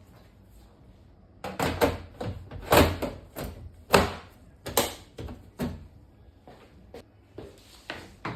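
A run of metal clunks and clicks from an HP DL380 Gen10 server's sheet-metal chassis being closed up, the loudest about three and four seconds in, with a few fainter clicks near the end.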